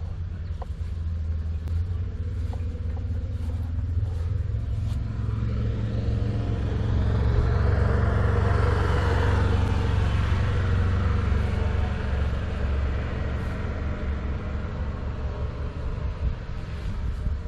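A motor vehicle's engine rumbling steadily, swelling to its loudest about halfway through and then easing off.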